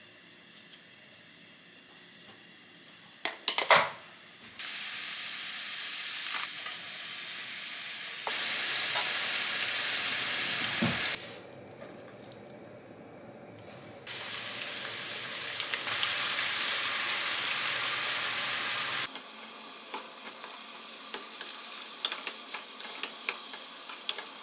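Food sizzling in a frying pan, in several separate stretches with abrupt cuts between them. A few knocks come about three and a half seconds in, and light pops and crackles near the end.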